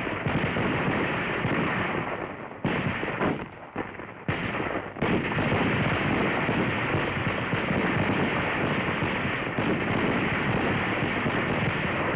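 A squad firing .30 caliber M1 rifles, the semi-automatic shots overlapping into a continuous crackling rattle under heavy old-soundtrack noise. The sound dips briefly and cuts back in twice between about three and five seconds in.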